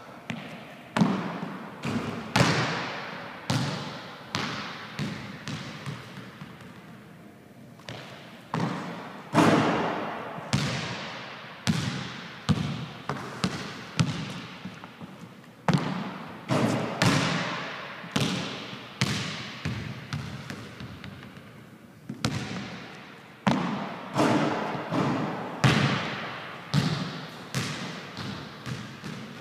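A basketball bouncing again and again on a hardwood gym floor at an irregular pace, each impact echoing through the large, empty hall.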